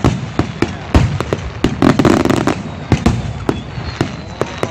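Fireworks display: a rapid, irregular string of sharp bangs and pops, with a louder crackling burst about two seconds in.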